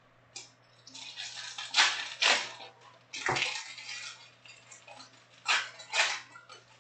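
Foil trading card packs crinkling and rustling as a hand lifts and shifts a stack of them, in about five sharp bursts.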